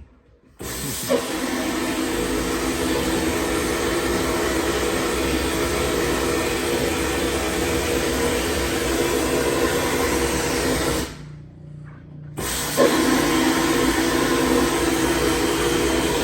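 Vapor honing cabinet blasting a steady hiss of wet abrasive spray while cleaning a reused exhaust gasket. The blast starts about half a second in, stops for about a second and a half about eleven seconds in, leaving a low hum, then starts again.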